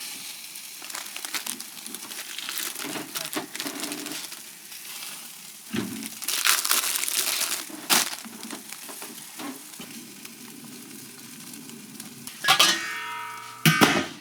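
Food frying with a steady sizzle, with a few louder bursts, the loudest near the end.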